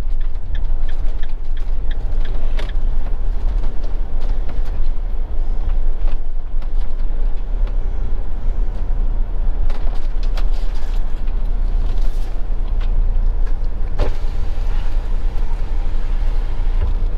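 Motorhome engine and road noise heard from inside the cab: a steady low rumble as it drives slowly, with a few sharp clicks from the cab.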